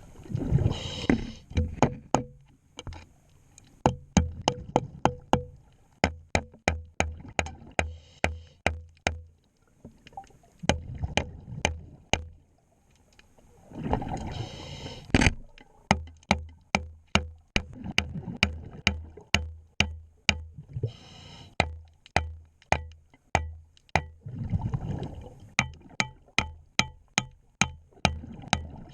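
Scuba diver's regulator heard underwater: a gurgling rush of exhaled bubbles every few seconds. A steady run of sharp clicks and low knocks, about two to three a second, goes on between the breaths.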